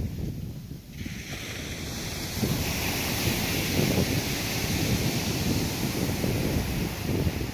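Ocean surf washing in, its hiss swelling up about a second in, with wind buffeting the microphone.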